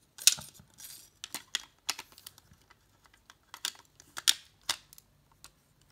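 Hard plastic toy stage pieces clicking and clacking against each other as they are fitted together by hand: a string of irregular sharp clicks and knocks.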